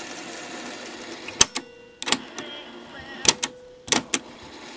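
Panasonic RE-6600 cassette mechanism whirring steadily in fast forward, then about a second and a half in the piano-key transport buttons clunk down and back up, about eight sharp clicks in pairs, with the whir dropping out between them.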